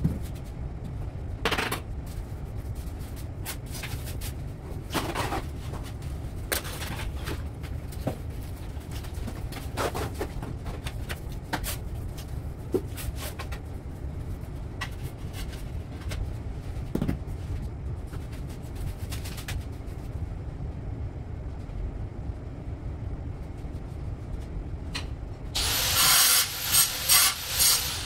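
Tiler's hand tools scraping and tapping on tile and mortar: scattered faint scrapes and knocks over a steady low rumble. Near the end, a loud burst of rapid, sharp high sounds lasting about two seconds.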